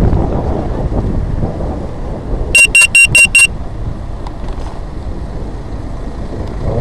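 Five rapid, loud electronic beeps, about five a second, a little past the middle, over a steady low rumble of wind on the microphone.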